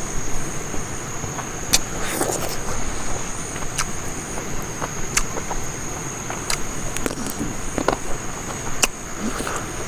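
Mouth sounds of eating rice and chicken curry by hand: chewing and lip-smacking, short wet clicks every second or so. Behind them run a steady high insect drone and a low steady rumble.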